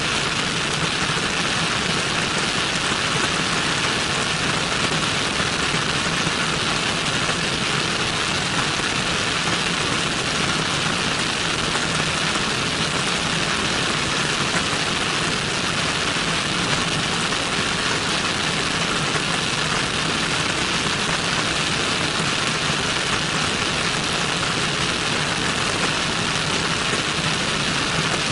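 Cessna 172N's four-cylinder Lycoming engine and propeller running steadily in flight, heard from outside the airframe with a strong, even rush of airflow over the microphone.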